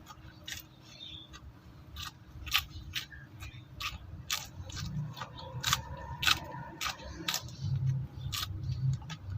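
Close-up chewing of raw bitter gourd (ampalaya): a string of crisp crunches, a few a second, with wet mouth noises underneath.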